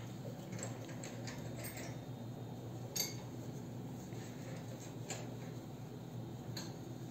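Light scattered clicks and ticks of hand crocheting with a metal crochet hook in yarn, the sharpest about three seconds in, over a steady low hum.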